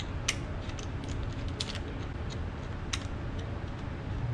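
A few sharp clicks and small ticks of bolts being started by hand in a LiveScope Perspective mount bracket on a trolling motor shaft, over a low steady background hum.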